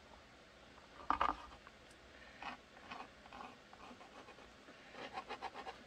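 Faint scratching of a fabric marking pencil on a formed kydex sheet as hole marks are drawn, with a light knock about a second in as the sheet is handled and a quick run of short strokes near the end.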